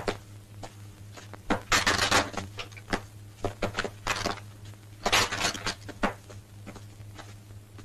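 Rifles clattering as they are dropped onto a pile of weapons on the ground, in three bursts of clatter a second or two apart.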